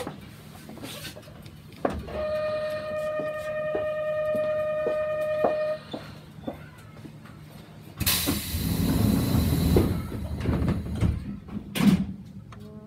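Yamaman Yukarigaoka Line train standing at a station: a steady electronic door-warning buzzer sounds for about four seconds. About two seconds later comes a loud hiss with clunks, lasting about two seconds, as the sliding doors shut.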